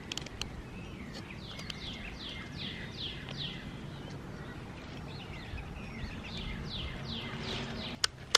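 A bird singing outside in two runs of quick, repeated falling chirps over steady outdoor background noise. A couple of sharp clicks near the end, from tools being handled.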